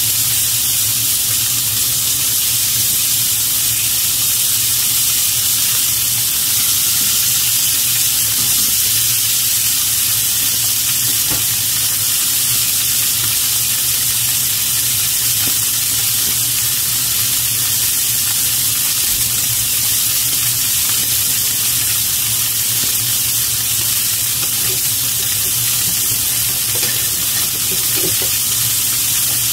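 Pork belly slices (samgyeopsal) sizzling steadily in their rendered fat in a nonstick frying pan.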